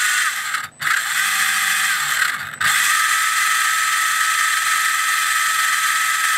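ORCA Blitreme 3 brushless RC motor driving a 28-tooth pinion into the test rig's gears at speed: a loud, steady, high-pitched whine. It drops out briefly twice, about three quarters of a second in and again at about two and a half seconds, as the analyzer's auto-run test steps the motor through.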